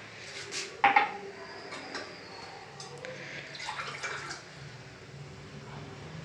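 Glass and steel kitchen vessels being handled, with a sharp clink about a second in and a few lighter knocks after it, and a little water trickling.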